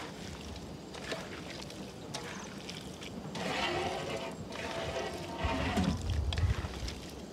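Bare hands mixing chopped pork in a stainless steel bowl: wet squelching with small clicks of meat against the metal. A low rumble comes in about five and a half seconds in and is the loudest part.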